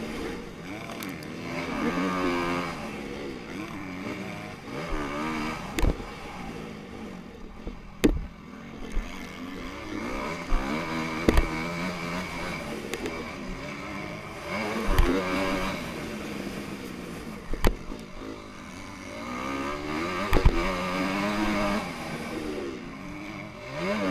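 Honda CRF250R's single-cylinder four-stroke engine revving up and falling off again and again as the dirt bike is ridden hard around a motocross track, heard from an on-board camera. Several sharp knocks stand out along the way.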